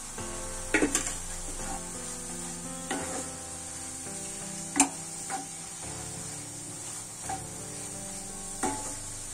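Wooden spatula stirring mushrooms and vegetables in a cast iron skillet over a steady sizzle, with about six sharp knocks of the spatula against the pan, the loudest about five seconds in.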